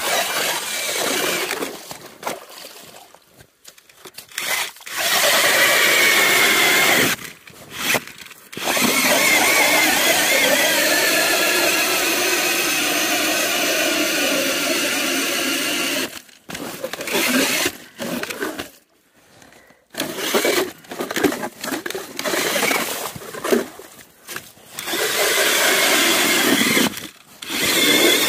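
Powered ice auger boring through ice, its motor whining under load in several runs with short stops between them, the longest about seven seconds.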